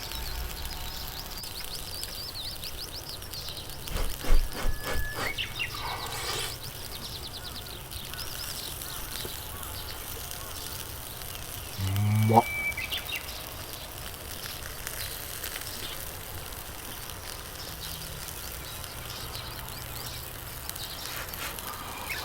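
Horumon skewers sizzling steadily over charcoal on a shichirin grill. A few light knocks come about four to six seconds in, and a short low voice sound comes about twelve seconds in, with faint bird chirps.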